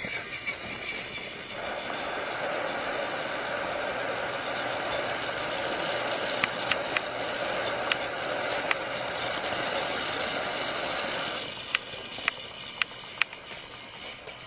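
Motorized toy trains running on plastic track: a steady motor whir from about a second and a half in until near the end, with scattered sharp clicks, and a few louder clicks after the whir fades.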